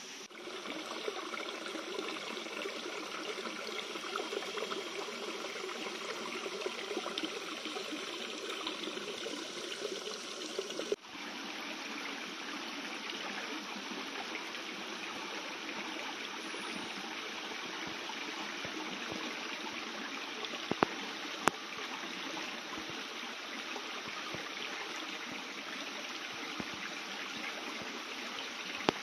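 Shallow rocky creek running over stones: a steady rush of water. Its sound shifts abruptly about a third of the way in, and two short sharp clicks stand out a little past the middle.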